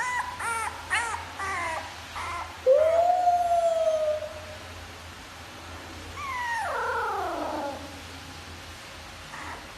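A pet animal calling: a quick run of short calls, then one long loud call that rises and holds its pitch, and later a long call that slides down in pitch.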